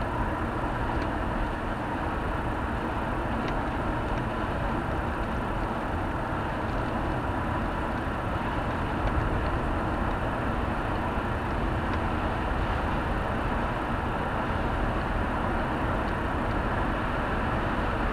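Steady road and engine noise heard from inside a car cruising at an even speed.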